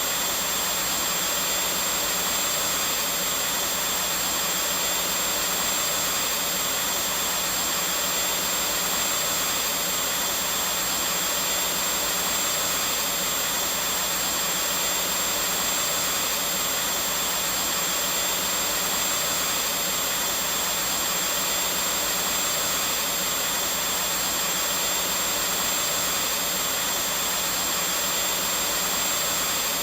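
Vacuum cleaner running steadily, a continuous even whooshing hum with a faint high whine, unchanging throughout.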